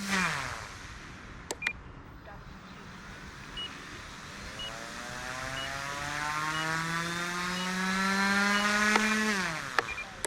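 Omphobby M1 RC helicopter's electric motor and rotor winding down at the start, then spooling back up in a slowly rising whine for several seconds before cutting off sharply near the end. Short high beeps repeat about once a second during the lull, with a couple of clicks.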